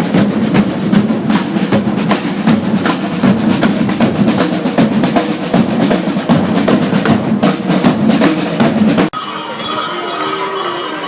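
Drumming: a dense run of drum strikes, snare-like with a deep drum underneath. It cuts off abruptly about nine seconds in, giving way to a different sound with steady tones.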